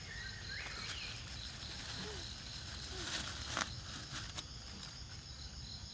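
Insects chirping in a steady pulsing rhythm, about four chirps a second, over a low outdoor rumble, with a short burst of crackly rustling about three seconds in.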